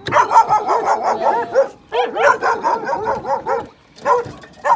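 Several dogs whining and yelping in short rising-and-falling cries that overlap in quick succession, thinning to a few single cries near the end. The dogs are crowding round a bowl of food being dished out to them.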